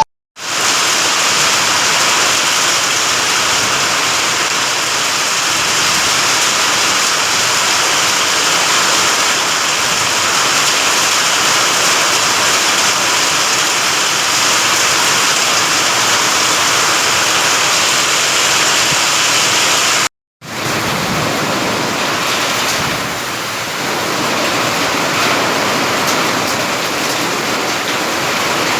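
Rain falling steadily in a loud, even downpour. The sound drops out for a moment right at the start and again about twenty seconds in.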